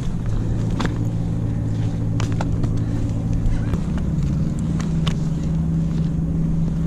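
An engine running steadily, its drone stepping up in pitch a little before four seconds in, with a few light clicks over it.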